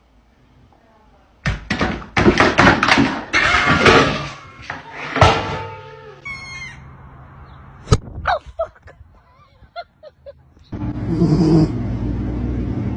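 A run of sharp knocks and thuds for a few seconds, then scattered clicks. About eleven seconds in, a golden retriever lying asleep starts snoring with a steady low rumble.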